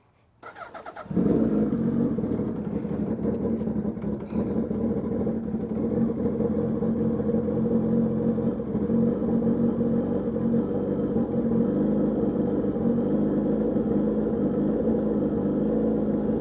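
Suzuki Hayabusa's inline-four engine catching about a second in after a brief crank, then idling steadily as it warms up.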